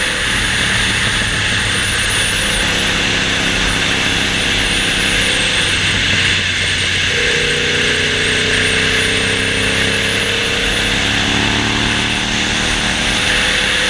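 1998 Honda VTR1000F's 90-degree V-twin engine running steadily, its pitch drifting slowly up and down, under a loud even hiss.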